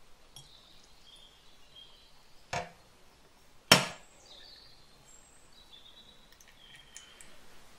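Two sharp knocks about a second apart, the second much louder, over faint high bird chirps in the background.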